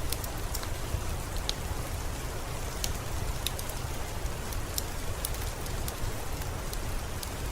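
Steady rain ambience: an even hiss with a deep rumble underneath. Scattered sharp, high ticks come every so often.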